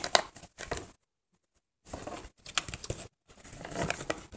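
Cardboard box and its paper packaging being handled while unpacked: irregular small taps, scrapes and rustles, with the sound cutting out completely for under a second shortly after a second in.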